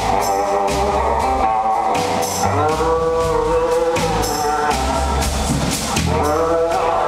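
Live band music at full volume: electric guitar, bass and drums, with melodic lines that swell and glide in pitch over a steady bass and cymbal or tambourine strokes.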